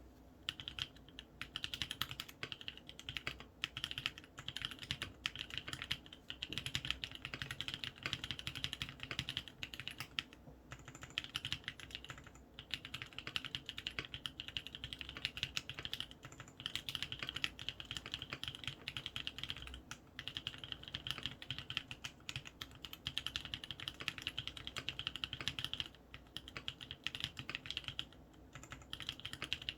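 Steady typing on a Matrix Noah aluminium mechanical keyboard with lubed Kailh Cream switches and PBT keycaps: a fast, continuous stream of key clacks, broken by a few brief pauses.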